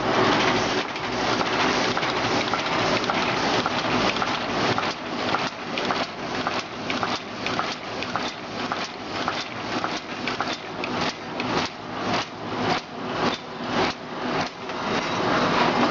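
Automatic cartoning machine packing soap bars into cartons, running with a dense mechanical clatter. From about five seconds in, sharp regular clacks come about twice a second.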